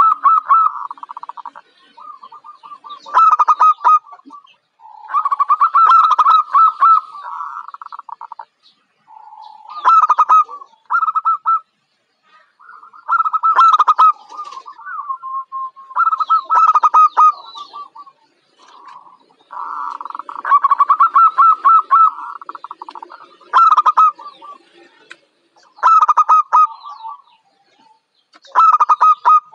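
Zebra dove singing: about ten loud phrases of rapid, stuttering coos near one pitch, each phrase a second or two long, following one another every two to three seconds.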